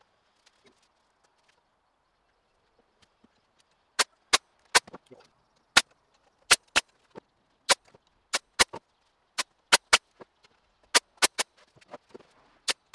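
Pneumatic nail gun firing nails into pine boards to join an acoustic-panel frame: about twenty sharp shots, irregularly spaced a few per second, starting about four seconds in.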